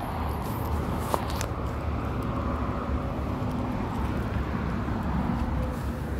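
Steady low rumble, with two light knocks just over a second in.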